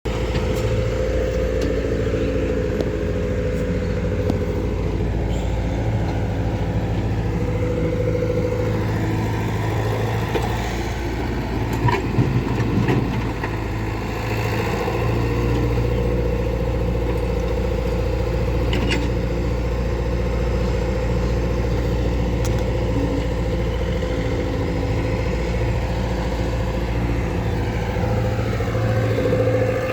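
Diesel engine of a tractor or backhoe running steadily, with a brief burst of clatter and louder running about twelve seconds in.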